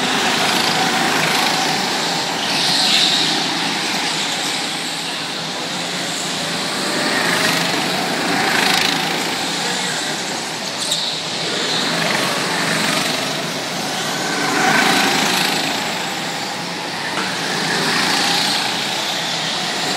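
Several small go-kart engines running around a track in a steady drone that swells several times as karts pass close by and then eases off.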